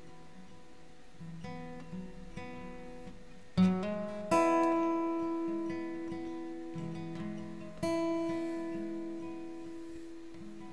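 Cutaway acoustic guitar played softly, then three strummed chords a few seconds in, a second or so in and about eight seconds in, each left to ring and slowly fade.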